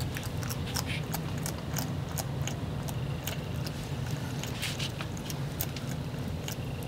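A bearded dragon chewing a live worm: irregular crisp crunching clicks over a steady low hum.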